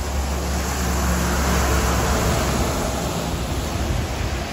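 Heavy thunderstorm rain pouring down, a dense hiss with a deep low rumble underneath; it swells to its loudest about two seconds in and then eases a little.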